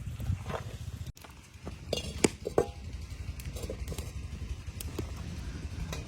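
A few sharp clinks of metal cooking pots and utensils, bunched about two seconds in, with lighter taps later, over a steady low rumble.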